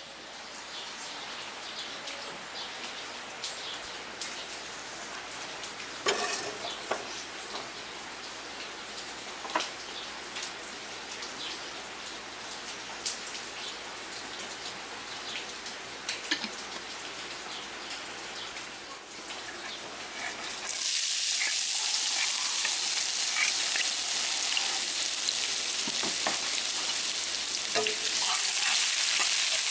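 Cooking oil heating in a wok, hissing quietly with scattered crackles and pops. About two-thirds through, a sudden loud sizzle as diced red onions go into the hot oil, with a metal spatula scraping and tapping the wok as they are stirred.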